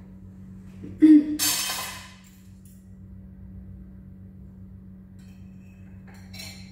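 Kitchen utensils clattering: a loud, sudden clatter about a second in that dies away over about a second. Near the end a metal fork clinks against a plate. A steady low hum runs underneath.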